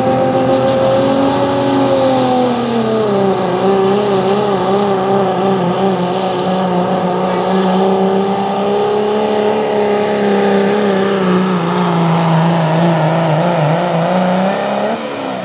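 6.7 Cummins diesel in a Dodge Ram pull truck running at full throttle under the load of a pulling sled. Its pitch drops about two seconds in, holds with a slight waver, and falls off near the end as the pull finishes.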